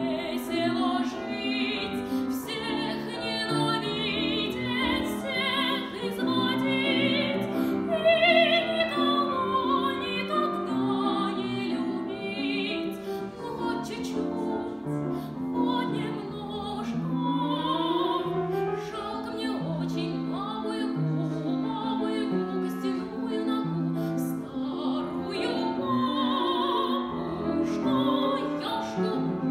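A girl singing a Russian children's song in a classical, operatic style, accompanied by a grand piano. About halfway through her voice slides up in a long upward sweep.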